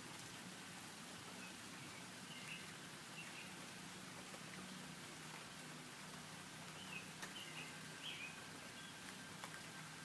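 Light rain falling as a steady faint hiss with scattered drip ticks, with faint short bird chirps a couple of seconds in and again about seven seconds in.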